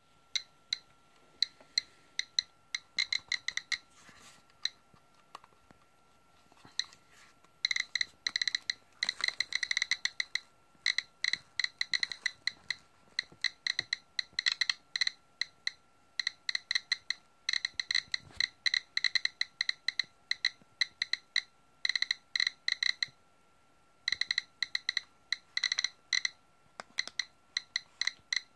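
GQ GMC-300E Plus Geiger counter clicking at irregular intervals, sparse at first, then much faster from about eight seconds in. The rapid clicking marks radiation counts well above background from uranium-glazed orange Fiestaware pottery, the display reading close to 180 counts per minute.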